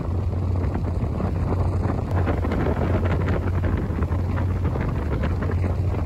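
A ferry's engine droning with a steady low hum, with wind buffeting the microphone.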